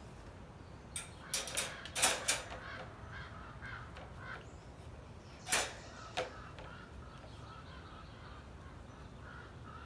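Wire dog crate door rattling and its metal latch clicking as it is closed: a quick run of sharp metal clicks about a second in, then two more knocks a few seconds later.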